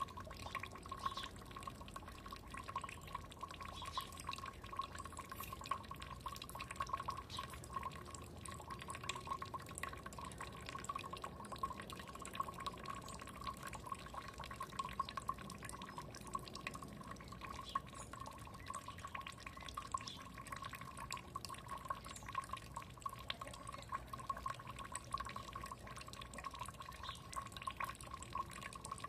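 Small stream of water trickling and dripping steadily, a constant run of quick irregular drops.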